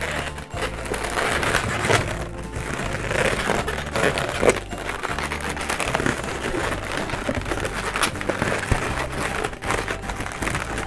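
Latex modelling balloons rubbing against each other with crinkly squeaks as they are wrapped and twisted into a flower centre, one sharp rub about halfway through. Background music with a steady bass line plays under it.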